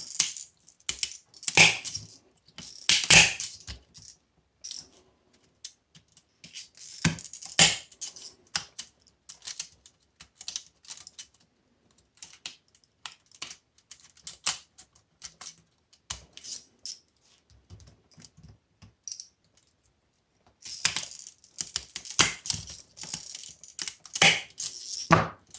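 Irregular sharp clicks, snips and crackles of hand cutters cutting and prying at the copper windings of a washing machine motor, with a few louder snaps and a busier run near the end.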